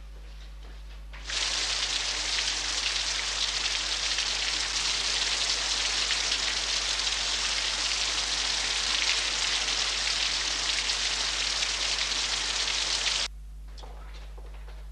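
Heavy spray of water falling steadily, as from a shower. It starts abruptly about a second in and cuts off suddenly near the end.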